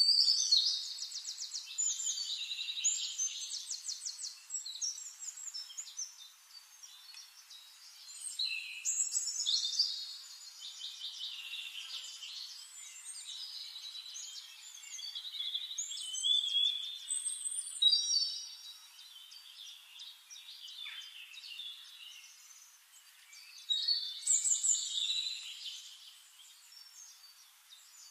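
Small birds singing in trilled, chirping phrases, in four bursts a few seconds long with quieter gaps between.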